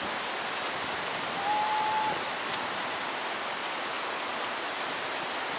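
Steady, even rush of a jungle stream, a loud constant hiss. About a second and a half in there is a single short, steady high note.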